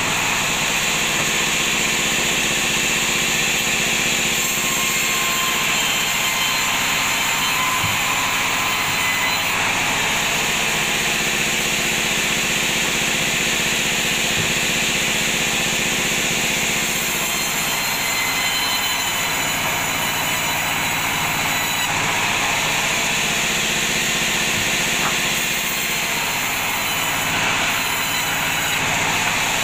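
Sawmill bandsaw running steadily and ripping a teak slab into boards: a loud, unbroken machine hum with the hiss of the blade in the wood.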